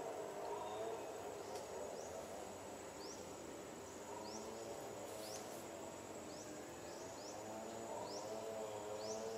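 Outdoor ambience: a steady high insect whine, short falling bird-like chirps repeating about once a second, and a faint wavering pitched sound underneath.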